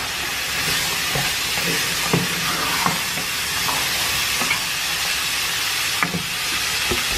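Sausage pieces and chickpeas sizzling steadily in oil in a frying pan, stirred with a spatula that scrapes and taps against the pan now and then.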